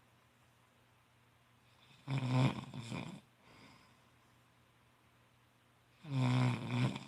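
A sleeping person snoring: two loud snores about four seconds apart, each lasting about a second and followed by a fainter breath.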